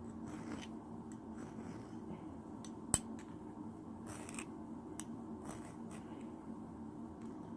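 Metal hand file scraping the point of a steel throwing spike in short, irregular strokes, with one sharp click about three seconds in, over a steady low hum.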